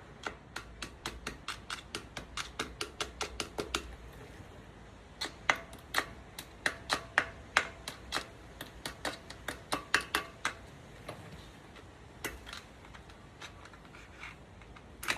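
Quick runs of light, sharp metallic clicks and taps, about three or four a second, as a C-clip is worked into place on the end of a Nissan Patrol's front axle shaft with C-clip pliers, some taps leaving a faint ring; they thin out to a few scattered clicks near the end.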